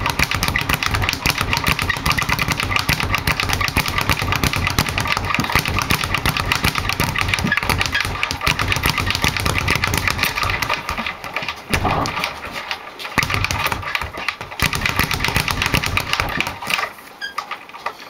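Rival leather speed bag, which the owner thinks is the 9x7 size, being punched in a rapid rolling rhythm, rebounding off the board and swivel in a fast run of thuds. A few short breaks come in the second half, and the hitting stops about a second before the end.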